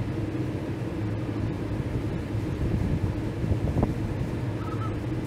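Steady low drone of a crane's engine running during a lift, with a short knock a little under four seconds in.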